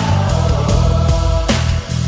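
Background music with a heavy, steady beat and sustained low notes.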